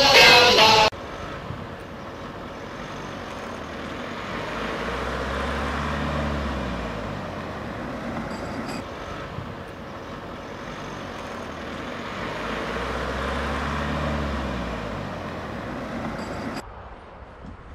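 Road traffic: two vehicles pass, each swelling up and fading away over about five seconds, one about six seconds in and the other about fourteen seconds in, over a steady background rumble. The sound drops away abruptly about a second before the end.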